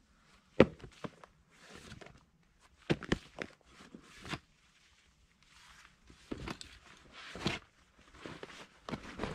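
Crinkling and rustling of a stiff PVC roll-top dry bag being opened and a soft item being pulled out of it. There are irregular bursts of rustle and a few sharp clicks and knocks, the loudest about half a second in.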